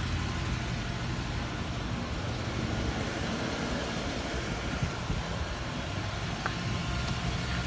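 Ford E-350 box truck's engine idling steadily, with a faint knock about five seconds in.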